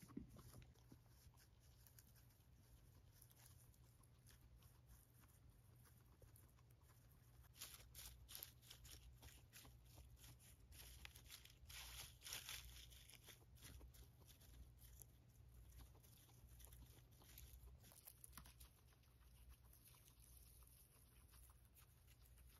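Guinea pigs chewing hay and tugging dry strands from a cardboard tube: faint crunching and rustling. The crunching comes in thicker clusters around the middle.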